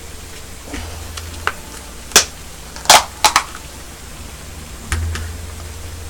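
A handful of sharp clicks and clacks of a small food container and kitchenware being handled beside a cooking pot, the loudest a quick double clack about three seconds in, with others about two and five seconds in.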